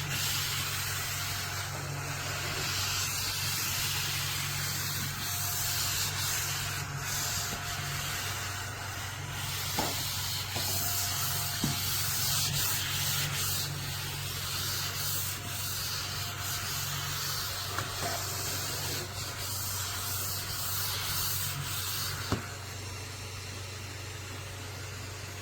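Small battery-powered desktop vacuum cleaner running with a steady hum, under a rough, scratchy rubbing hiss that rises and falls. There are a few sharp clicks. The hiss eases off a few seconds before the end while the hum carries on.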